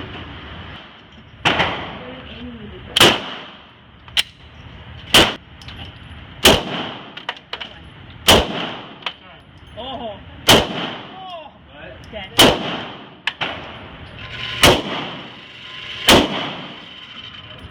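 Semi-automatic pistol fired at a slow, steady pace: nine loud shots, one every one and a half to two seconds, each echoing in the concrete indoor range, with a couple of fainter cracks in between.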